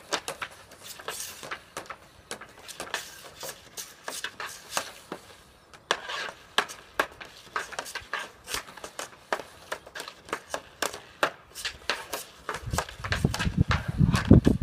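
Hockey stick blade and puck clacking on a shooting pad during stickhandling: quick, irregular taps, several a second. A low rumble comes in near the end.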